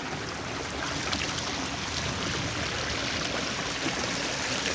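Water sloshing and trickling as a hand dip net is worked through shallow pond water and lifted out, the water running off through its mesh.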